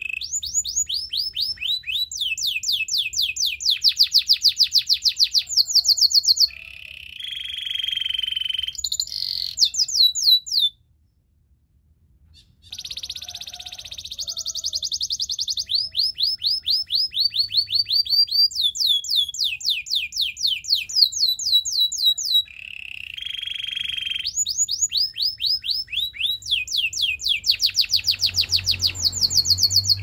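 A canary singing a long song of rapid trills: fast runs of short falling notes, many a second, alternating with lower buzzy rolls. The song breaks off briefly about a third of the way through, then carries on.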